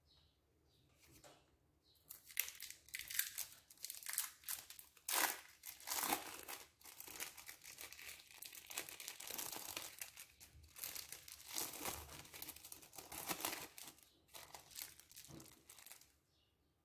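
Crinkling of cheese-slice wrapping as slices are peeled apart, a dense irregular crackle that starts about two seconds in and stops shortly before the end.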